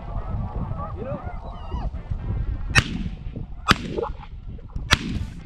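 Snow geese calling with a chattering of rising and falling honks, then three shotgun shots in quick succession, roughly a second apart, in the second half.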